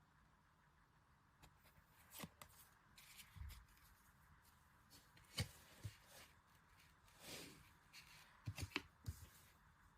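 Faint handling noise of photocards and their packaging: light rustling and scattered small clicks and taps, the sharpest about five and a half seconds in and a quick cluster near nine seconds.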